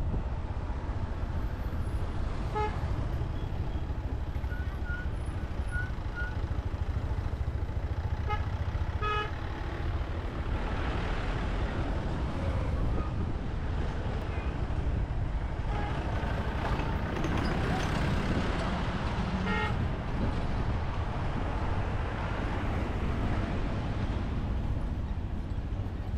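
Motorcycle running steadily on the move, a low rumble throughout, with short vehicle-horn toots a few times: once early, a couple around a third of the way in, and once past the middle.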